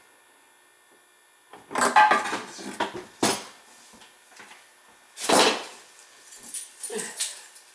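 Hard items clattering and knocking, as when parts are handled and set down. There are separate bursts about two, three and five seconds in, with lighter clicks after them.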